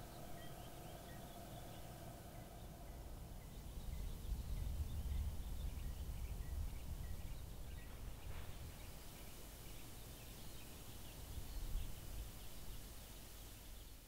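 Faint outdoor ambience: a low wind rumble on the microphone that swells from about four to seven seconds in and again near the end, with small, high bird chirps scattered throughout. A faint steady hum fades out in the first few seconds.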